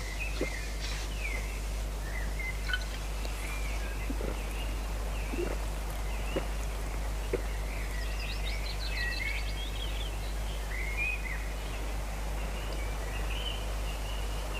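Small birds chirping in many short calls over a steady low background hum, with a few faint soft knocks.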